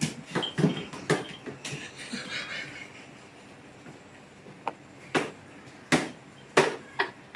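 A series of irregular sharp knocks and thumps: several close together at the start, then a few single ones spaced out in the second half.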